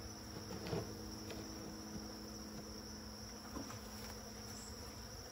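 Disturbed honeybees at an opened hive giving a steady hum over a constant high-pitched chorus of night crickets, with a light knock about a second in as the wooden hive box is handled.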